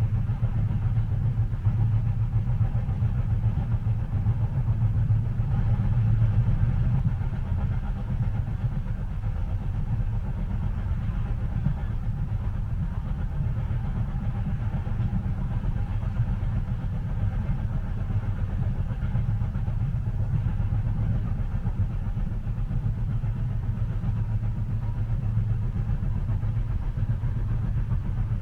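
Passenger train cabin ambience: a steady low rumble of the train running, with a faint hum above it, swelling slightly about six seconds in.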